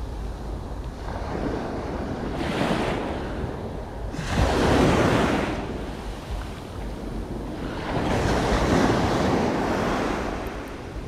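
Sea waves washing in against the shore rocks, swelling three times, about two and a half, four and eight seconds in, with wind rumbling on the microphone throughout.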